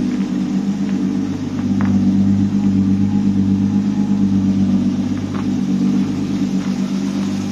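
Car engine idling with a steady, slightly pulsing rumble.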